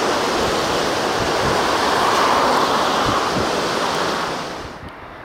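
Storm-force wind gusting through trees, with gusts buffeting the microphone. The rushing swells about two seconds in and fades out near the end.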